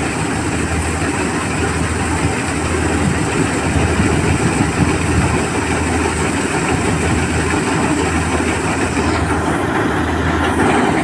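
Preet 987 combine harvester's diesel engine and machinery running steadily while its unloading auger pours wheat grain into a trolley, with a constant low hum under a dense mechanical rush.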